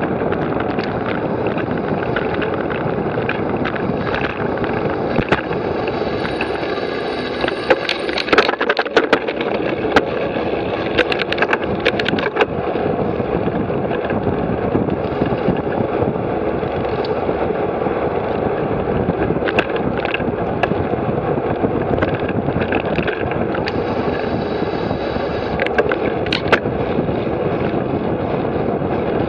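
Steady wind and road rush on the microphone of a camera riding on a bicycle moving at speed, with scattered sharp clicks and rattles, most of them about 8 to 12 seconds in.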